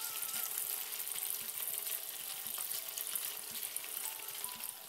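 Sliced egg tofu deep-frying in a wok of hot oil: a steady crackling sizzle.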